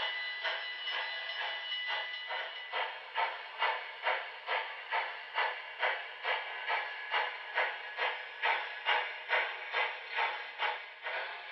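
The onboard DCC sound decoder of a Broadway Limited HO scale Southern Pacific GS-4 4449 model plays steam exhaust chuffs as the model runs, an even beat of about two chuffs a second. It comes through the model's small speaker, thin and without deep bass, and a faint steady tone fades out in the first few seconds.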